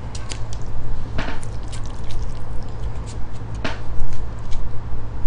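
Chopsticks and plastic takeout containers handled while saucy stir-fried pig intestines (gopchang bokkeum) are dished onto a small plate: soft wet squishing with light clicks and taps, and two sharper knocks about a second in and past halfway, over a steady low hum.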